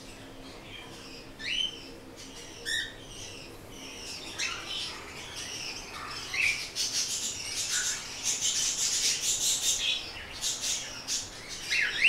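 Caged cockatiels calling: a few separate rising chirps at first, then a busy stretch of chirping and squawking from about six to ten seconds in.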